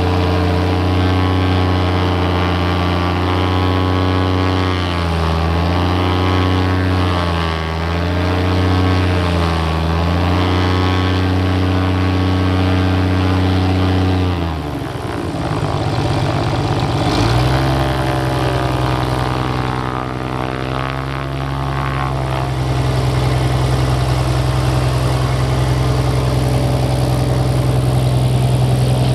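Aerobatic airplane's piston engine and propeller running steadily, the pitch wavering for a few seconds. About halfway through the note drops and changes, then settles into a new steady drone that grows louder near the end as the plane taxis by.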